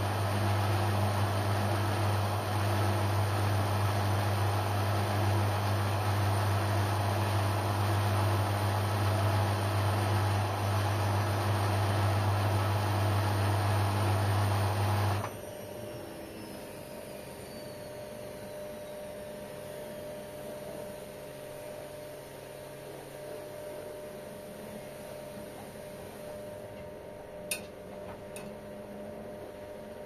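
LG Intellowasher front-loading washing machine running mid-cycle: a loud, steady low hum that cuts off abruptly about halfway through, leaving a much quieter machine sound with a faint falling whine. A single sharp click comes near the end.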